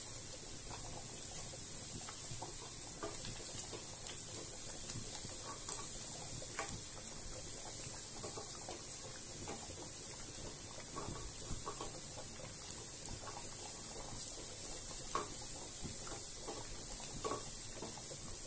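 Thinly sliced onions frying gently in oil in a small saucepan until wilted: a steady faint sizzle with scattered small pops and crackles.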